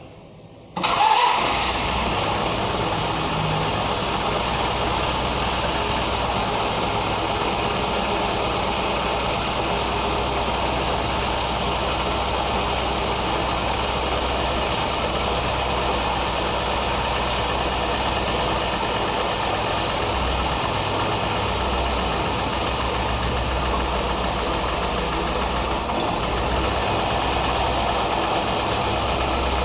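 Ford Ka's Endura engine, which comes in suddenly about a second in and then runs steadily.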